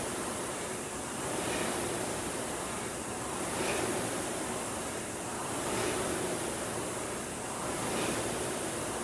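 Concept2 indoor rower's air-resistance fan flywheel whooshing, swelling with each drive stroke and easing on the recovery, about one surge every two seconds at a steady rate near 28 strokes a minute.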